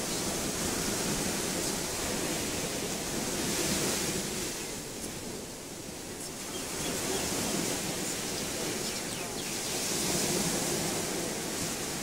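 Surf washing on a beach: a steady rush that swells and fades, rising about four seconds in, easing, then rising again near the end.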